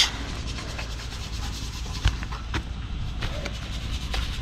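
Steady scraping and rubbing, dense with small ticks, over a low rumble, with a couple of light knocks about two seconds in.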